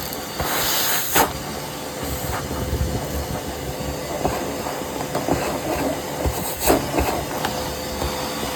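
Dryer vent cleaning rods knocking and scraping inside the vent duct over a steady hiss and hum, with a louder rush of hiss near the start.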